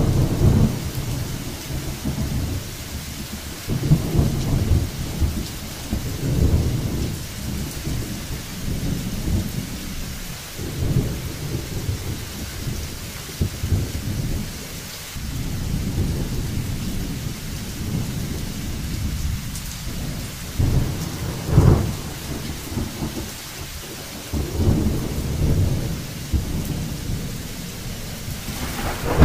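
Thunderstorm: steady rain hissing, with rolls of low rumbling thunder swelling and fading every few seconds and one sharper clap about three-quarters of the way through.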